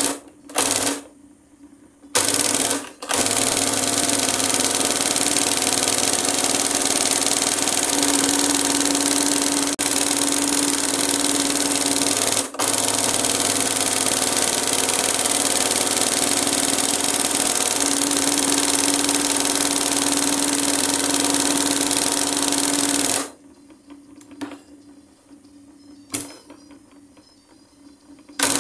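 Industrial embroidery machine stitching gold cord onto fabric. It runs in two short bursts, then steadily with a constant motor hum for about twenty seconds, stops, and gives two more short bursts near the end.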